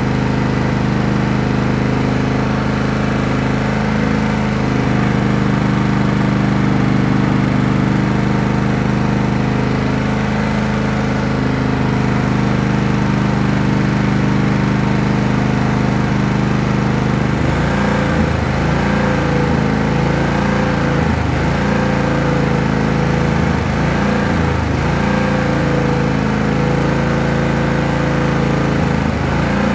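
Riding lawn tractor's engine running steadily; a little past halfway its note changes and begins to rise and fall regularly, about once a second.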